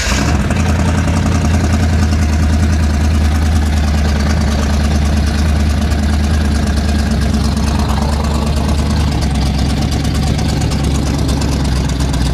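Car engine idling steadily, just after starting, with the gearbox stuck in drive so the car is trying to creep forward.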